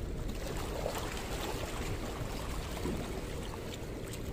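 Small waves lapping and splashing against rocks at the water's edge, a steady wash of water sound.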